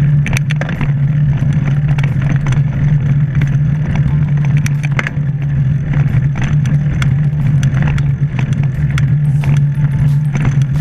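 Steady low hum and road noise of a moving ride, with scattered sharp clicks and rattles.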